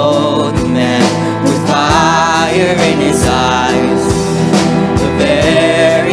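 Worship band music: a vocalist sings long, wavering notes over steady held chords, with a drum thump roughly every second.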